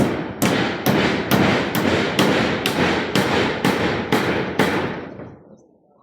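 Hammer blows striking in a fast, even rhythm, about two a second, each with a short ringing tail, stopping about five seconds in.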